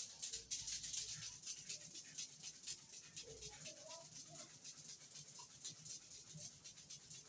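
Steel hair-clipper blade rubbed back and forth on a flat sharpening surface, a rhythmic scraping at about three strokes a second.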